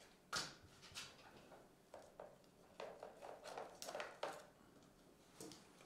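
Light clicks, taps and rustles of small objects being handled on a tabletop: a sharp click shortly after the start, then a quick run of taps and brushes between about three and four seconds in.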